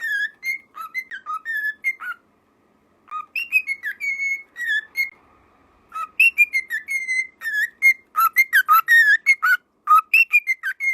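Cockatiel whistling a tune in phrases of short, clear notes that slide up and down, pausing briefly about two seconds in and again about five seconds in.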